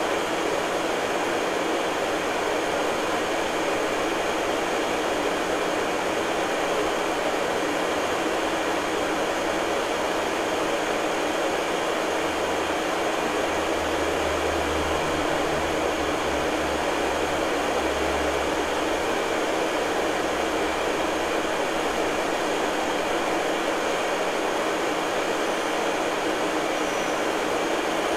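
Steady, even hiss with no distinct events. A low rumble swells and fades about halfway through.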